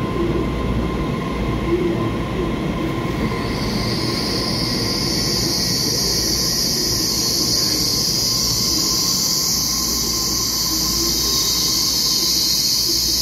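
Taiwan Railway EMU3000 electric multiple-unit train running alongside an underground platform, a steady rumble of wheels on rail. From about three and a half seconds in, a loud, steady high-pitched squeal joins the rumble and lasts to the end.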